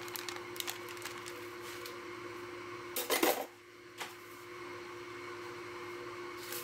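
Plastic seasoning pouch crackling as it is cut open and handled, with one short, loud rustle a little after three seconds in and a single click at about four seconds, over a faint steady hum.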